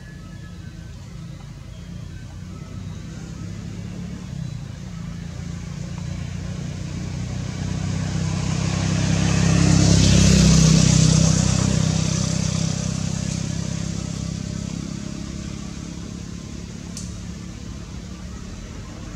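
A motor vehicle passing by: engine hum and tyre noise grow steadily louder to a peak about ten seconds in, then fade away.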